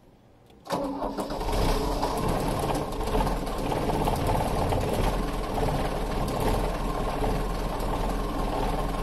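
Mercedes-Benz 220D's 2.2-litre four-cylinder diesel engine starting about a second in, then settling into a steady idle, as the car is brought back into running order after standing.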